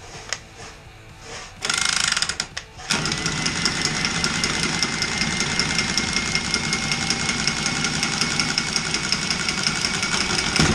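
Milwaukee M12 cordless copper tubing cutter spinning its blade around a copper water pipe: a short burst about two seconds in, then a steady motor whine with fast ticking for about eight seconds as it cuts the pipe, stopping at the end.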